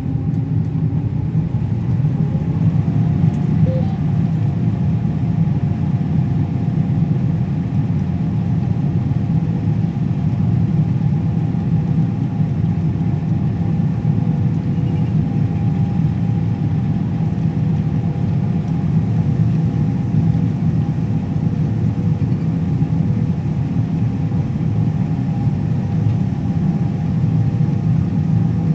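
Combine harvester running steadily while cutting a wheat sample. There is a low engine drone, with a steady whine above it that rises slightly in the first few seconds and then holds level.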